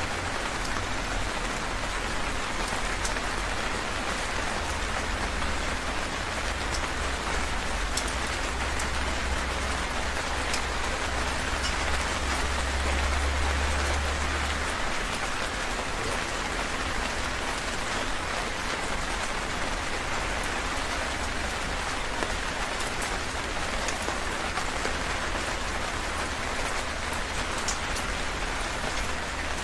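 Heavy rain falling steadily, a dense even hiss of drops with scattered sharper drop ticks. A low rumble swells under it and dies away about halfway through.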